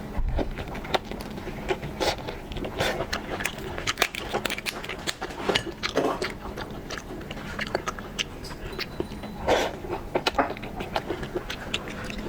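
A person biting and chewing shrimp close to the microphone: irregular wet mouth clicks and crunches.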